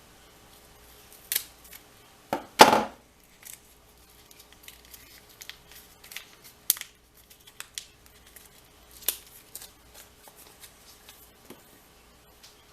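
Small metallic clicks and scrapes of a pin-tumbler lock being worked with its key during disassembly. There is a louder scrape about two and a half seconds in, then a scatter of light clicks.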